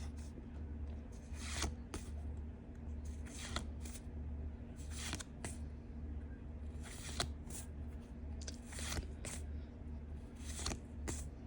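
Pokémon trading cards being slid off one another one at a time, a short swish every second or two, over a low steady hum.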